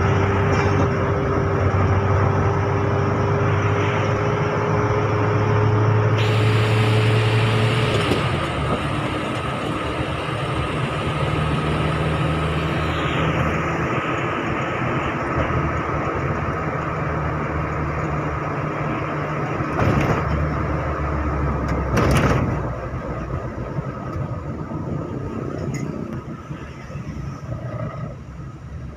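Car engine and road noise heard from inside the cabin while driving. A steady engine note holds for the first eight seconds and then drops away, two short thumps come about twenty and twenty-two seconds in, and the noise gets quieter near the end.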